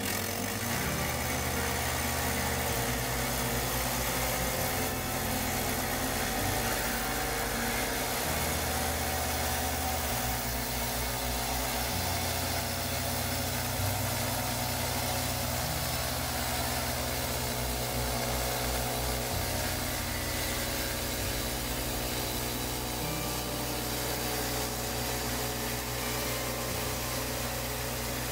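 Gas engine of a Woodland Mills HM122 portable band sawmill running steadily under load while its band blade cuts lengthwise through a pine log.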